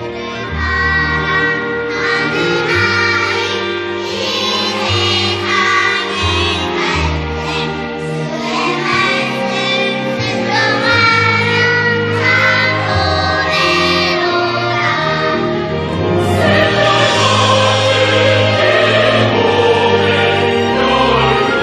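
Choir singing a hymn over sustained low accompaniment, swelling fuller about two thirds of the way through.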